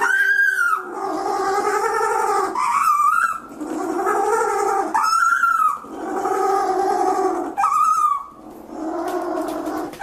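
A little penguin calling in a braying series. Each phrase is a short high note followed by a longer, lower note, repeated about four times.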